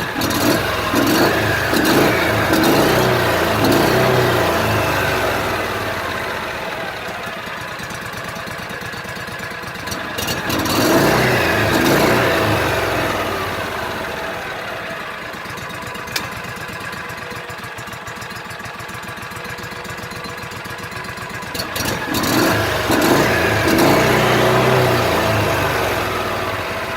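The 2004 John Deere Gator HPX 4x4's gas engine running on its freshly rebuilt carburetor after sitting for two years. It is revved three times, about ten seconds apart, and each time the pitch rises quickly and then slowly falls back toward idle.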